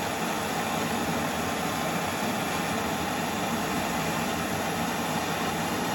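Handheld gas torch burning with a steady hiss, heating a drill bit red-hot to melt it into a carburetor's plastic limiter cap. It cuts off suddenly at the end.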